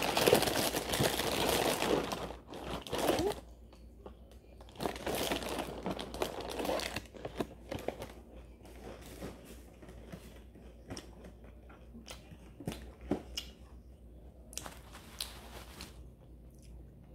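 Snack packaging crinkling and rustling in several stretches, loudest in the first three seconds, with scattered small clicks and crunches in between.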